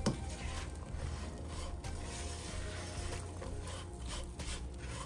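A silicone spatula stirs and scrapes pecans around a pan coated in butter, brown sugar and cinnamon, in repeated rubbing strokes against the pan bottom, while the sugar cooks down.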